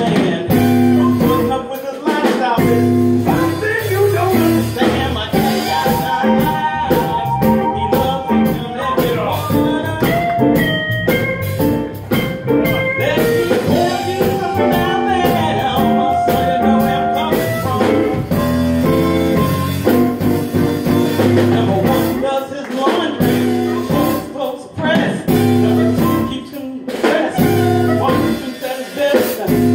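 Blues band playing live, with guitar, and a few long wavering lead notes in the middle.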